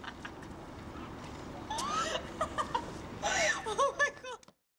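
People laughing, a woman's high, gliding laughs over a low steady background hum; the sound cuts off suddenly near the end.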